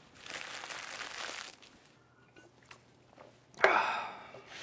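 Crunching and crinkling of someone eating a triangle kimbap, a seaweed-wrapped rice ball, and handling its torn plastic wrapper. It comes in two spells: one in the first second and a half, and a louder one about three and a half seconds in.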